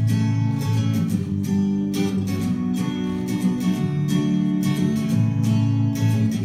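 Music with strummed acoustic guitar, steady throughout.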